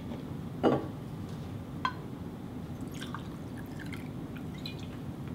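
Cocktail ingredients poured with a steel jigger: a short splash into a stainless shaker tin about a second in, then a light metal click and a quiet trickle as bourbon is poured into the jigger.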